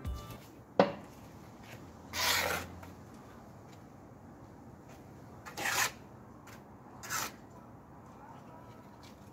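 Steel masonry trowel scraping wet mortar across a stone slab: a sharp knock about a second in, then three short scraping strokes spread over the next few seconds.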